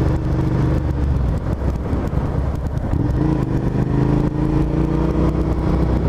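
2009 Suzuki SV650S's V-twin engine running under way, its pitch rising gradually from about three seconds in as the bike picks up speed.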